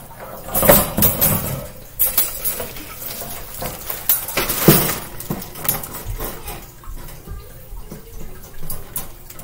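Wire cage grid panels clinking and rattling as they are swung and folded into a square, with a few sharper clanks, the loudest about a second in and again just under five seconds in.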